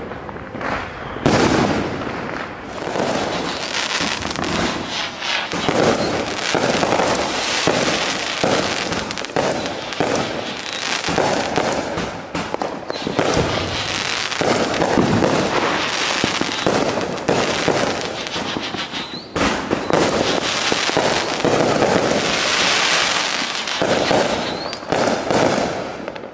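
Backyard aerial fireworks going off in a rapid barrage: repeated launches and bursting bangs with crackling, almost without a break.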